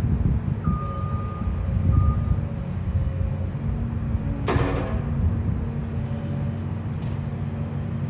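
Tracked skid steer's diesel engine running steadily under load while the machine sits stuck in deep mud. A high beep sounds twice in the first few seconds, and a short loud burst of noise cuts in about four and a half seconds in.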